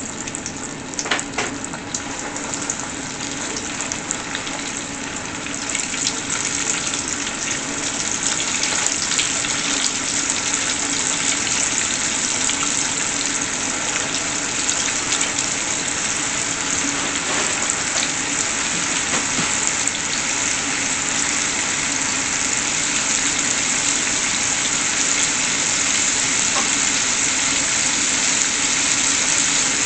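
Floured chicken pieces sizzling and bubbling as they deep-fry in a pot of hot grease, growing louder from about six seconds in as more pieces are dropped in. A few light clicks sound about a second in.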